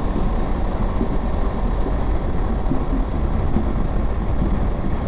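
Honda CB500X's parallel-twin engine running steadily at highway cruising speed, mixed with wind rush and road noise from riding.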